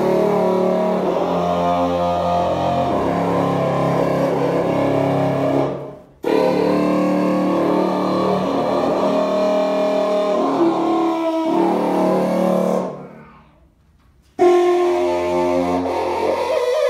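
Miraphone tuba playing an improvised passage, in three phrases separated by a short break about six seconds in and a longer pause near the end.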